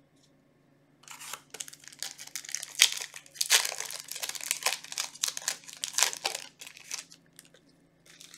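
Foil wrapper of an Ancient Guardians Yu-Gi-Oh booster pack crinkling and tearing as it is opened. An irregular crackle starts about a second in and stops about a second before the end.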